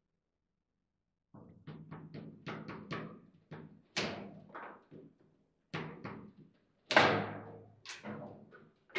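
Foosball table in fast play: after a second of quiet, a rapid run of sharp knocks and clacks as the ball is struck by the rod figures and bangs off the table walls. The loudest bang, about seven seconds in, is a hard shot into the goal.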